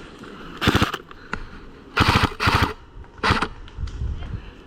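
Airsoft rifle firing four short full-auto bursts of rapid plastic BB shots, the first about half a second in and the last about three seconds in.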